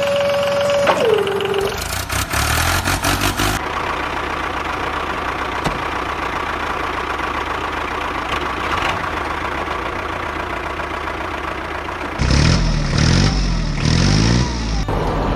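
Tractor engine running, with a steady horn-like tone that drops in pitch and stops about a second in. Near the end the engine gets louder and its pitch rises and falls, as if revving, and the sound changes abruptly several times.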